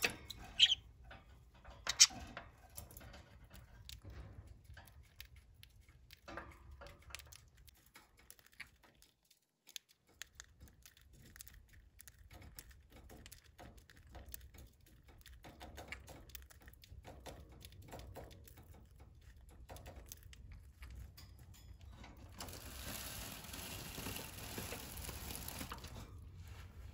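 Small parrots moving about in a wire cage: scattered faint clicks, taps and rustles, with one sharp, loud chirp or click about two seconds in. Near the end there is a few seconds of steady rustling and crinkling.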